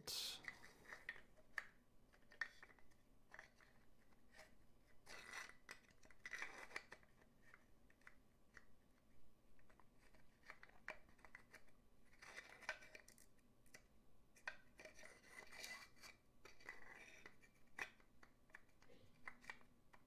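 Faint, irregular clicks, scrapes and rubbing from hands handling a puzzle box and sliding its metal key against it.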